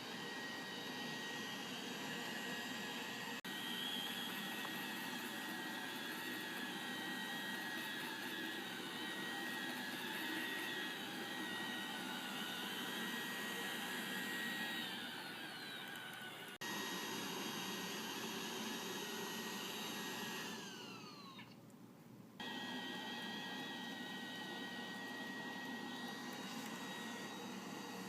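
Roomba robot vacuum running with a steady whirring hum and whine. About 20 seconds in its pitch falls and it quietens, then it starts up again abruptly.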